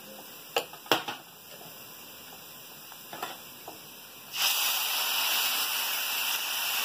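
A spoon clicks twice against a glass bowl. About four seconds in, a loud sizzle starts suddenly as tomato purée hits the hot oil and masala in a pan, and it keeps on hissing.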